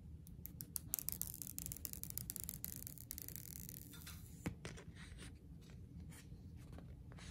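Hands handling phone packaging: light clicks and a stretch of scratchy rustling about a second in, then scattered taps with one sharper click a little past the middle.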